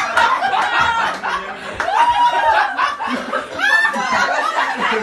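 A group of people laughing together, with overlapping voices and a high squeal of a voice about three and a half seconds in.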